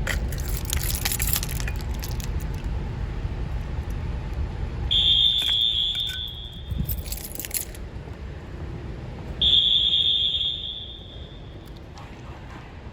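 Fire alarm horn, a first-generation Wheelock AS horn/strobe, sounding two long, steady high-pitched blasts a little over four seconds apart, each about a second and a half long. Rattling clicks come in the first couple of seconds and again between the blasts.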